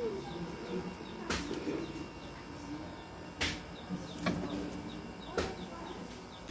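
Tabby cat making about three short chirping calls a couple of seconds apart, the excited sound a cat makes at prey it has spotted, here a lizard on the wall.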